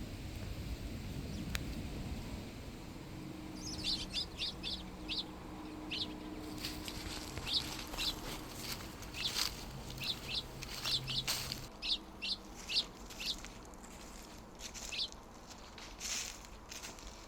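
A small songbird chirping repeatedly in short, high notes, in scattered runs. Under it a low steady hum runs and cuts off about two-thirds of the way through.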